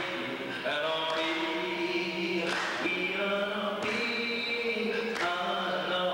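A man singing unaccompanied into a handheld microphone, in long held notes that slide between phrases.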